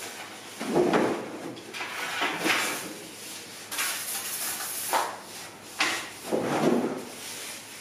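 A run of short sliding, scraping knocks, about six spread over several seconds, the loudest just under a second in.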